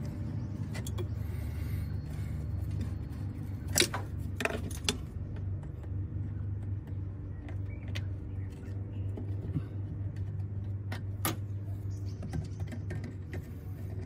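Pliers and metal parts clicking and tapping a few times while a new clutch master cylinder is being fitted, sharpest about four seconds in and again near eleven seconds, over a steady low hum in the background.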